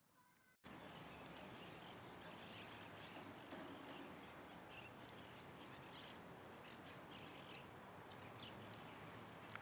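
Faint, scattered short bird chirps over a steady background hiss that starts abruptly about half a second in.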